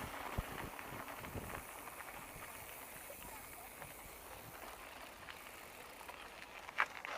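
Riding noise of a bicycle on the move: a steady rush of wind and tyres that is louder at first and settles after about a second and a half, with a few faint clicks and a short sharp squeak near the end.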